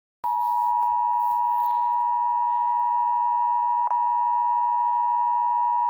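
Emergency alert attention tone: a steady electronic tone near 1 kHz with fainter higher overtones, starting about a quarter second in and held without a break. It is the signal that comes before an emergency broadcast message.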